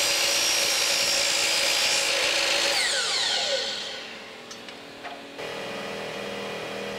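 Miter saw running as it cuts aluminum T-track. About three seconds in, the motor is switched off and the blade spins down with a falling whine. A quieter steady hum follows.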